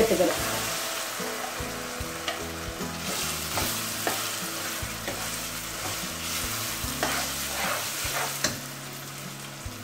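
Ground rice batter sizzling in hot oil with fried mustard seeds and dals, stirred in the pan, with occasional sharp clicks of the spoon against the pan. The sizzle slowly dies down.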